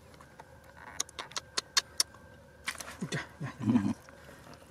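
Wet slaps and splashes as a large fish is gripped and pulled from a muddy water hole by hand: a run of short, sharp slaps about every fifth of a second in the first half, then more a little later. A brief low voice-like grunt comes about three and a half seconds in.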